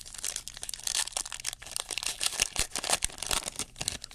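Foil wrapper of a Topps Stadium Club Chrome trading-card pack crinkling and tearing as it is ripped open by hand: a dense run of sharp crackles.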